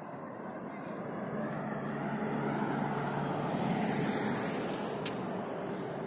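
A car passing by on the road alongside, its tyre and engine noise growing louder to a peak a little past the middle and then easing off.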